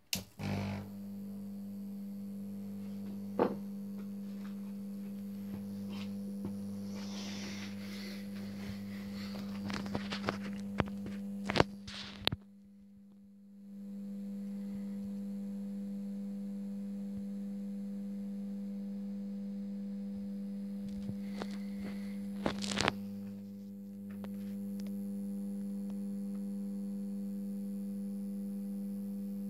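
A 400 W probe-start metal halide lamp and its ballast switched on with a click, then giving a steady low electrical hum as the lamp warms up, with a few scattered clicks and knocks and two brief drops in the hum.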